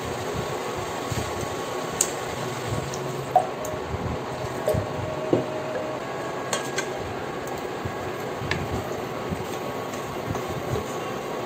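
Stir-fry vegetables in a stainless steel pot being stirred with a wooden spoon as a little water is poured in: wet squishing and liquid sounds over a steady hiss and hum, with a few light clicks of the spoon against the pot.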